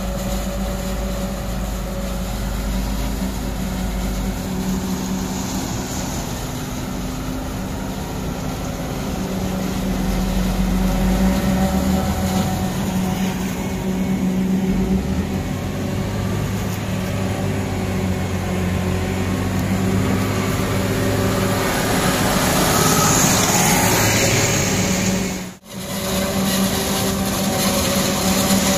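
Diesel engines of tractors and a John Deere self-propelled forage harvester running steadily under load while the harvester chops maize into a trailer, with a brief cut-out near the end.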